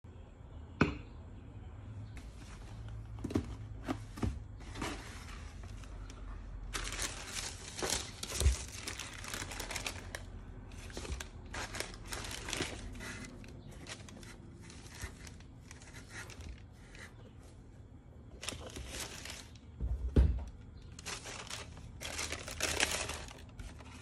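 Tissue paper crinkling and rustling as new sneakers are handled and lifted out of a shoebox, in irregular bursts with a few sharp knocks against the box.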